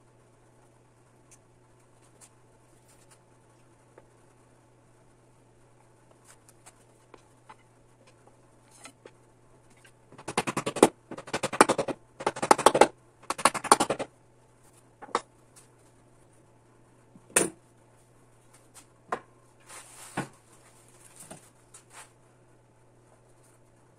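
Wooden spindles knocking and rattling against one another as they are handled. There are four short runs of rapid clattering about halfway through, then a few single wooden knocks.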